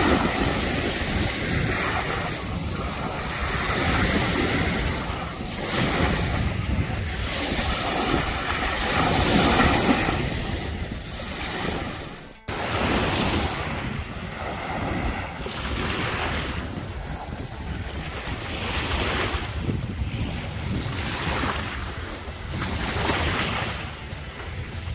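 Wind buffeting the microphone over small waves washing onto a sandy shore, the noise swelling and easing every second or two. The sound cuts out abruptly for an instant about halfway through, then carries on.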